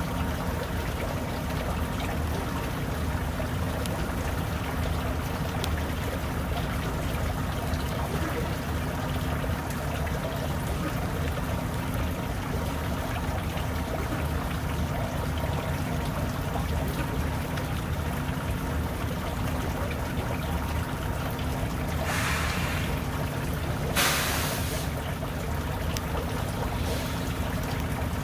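Semi truck's diesel engine idling with a steady low rumble. About 22 and 24 seconds in come two short hisses, the second one louder.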